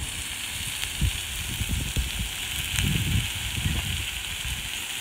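Smashed potatoes frying on a hot flat-top griddle over a charcoal fire: a steady high sizzle, with a few low thumps and rumbles about a second in and around three seconds in.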